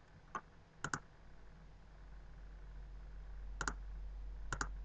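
Computer mouse button clicks. A faint tick near the start, then three clicks, each a close double tick of press and release: one about a second in and two near the end. A faint low hum runs underneath.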